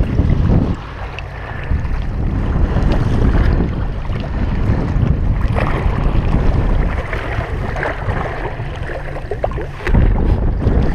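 Wind buffeting a GoPro's microphone: a heavy, uneven low rumble that rises and falls with the gusts, with a few short knocks and rustles as the wearer moves.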